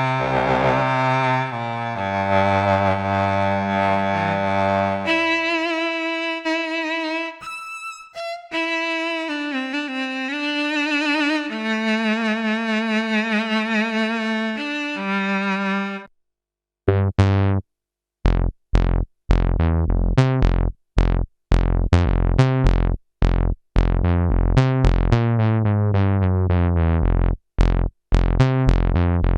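Expressive E Osmose 49 synthesizer being played. First comes a sustained string-like sound in chords with vibrato. It stops about halfway through, and after a short gap a different sound starts: short plucked notes over a bass line in a steady rhythm.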